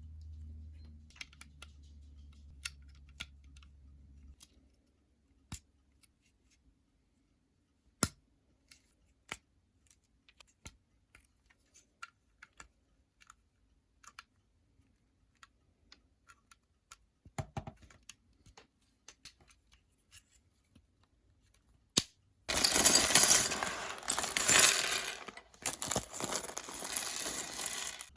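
Lego plastic pieces handled and snapped together: scattered single clicks and taps, then about 22 seconds in a loud, dense clatter and rustle of pieces being handled that lasts several seconds, with a brief break partway through.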